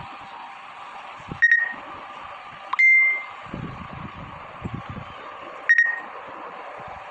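Three electronic beeps at a single high pitch, the middle one longer, over a steady hiss with a few low knocks.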